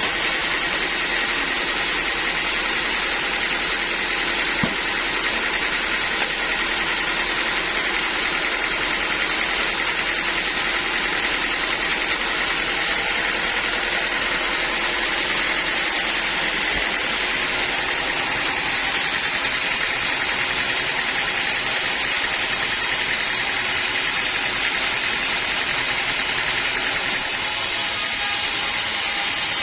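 Band sawmill machinery running steadily, a continuous even mechanical noise with a faint steady tone in it.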